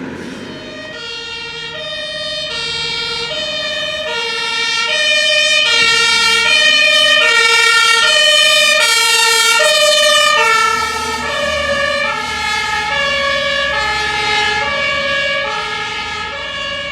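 Fire engine's German two-tone siren (Martinshorn), alternating evenly between a high and a low note. It grows louder as the vehicle approaches and fades after about ten seconds as it passes.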